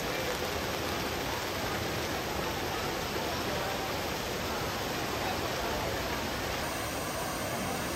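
Trevi Fountain's water spilling down its stone cascades into the basin: a steady rush of water.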